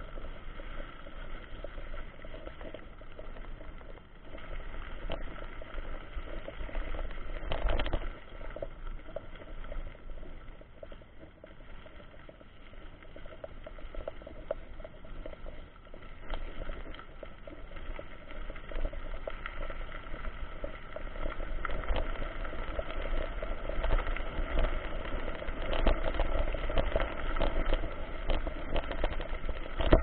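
Mountain bike rolling over a loose gravel dirt road: a steady rattling, crunching noise of tyres on stones, with many small clicks. It grows louder and rougher in the later part as the road turns to larger loose stones.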